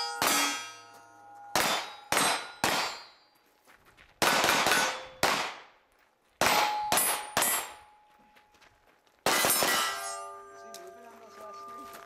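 Pistol-caliber carbine shots, about ten in quick groups, each followed by the ring of a struck steel target fading away.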